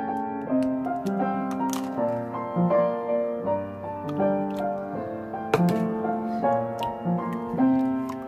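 Background music with piano-like keyboard notes changing about every half second, and a few short sharp clicks over it.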